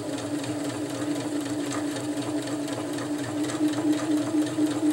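Electric domestic sewing machine stitching a straight top-stitch seam at steady speed: a continuous motor hum with rapid, even ticking from the needle mechanism.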